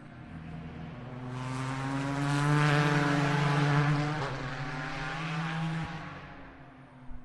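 A GT Le Mans race car's engine passing at speed. It swells to a loud, steady note near the middle and fades away again.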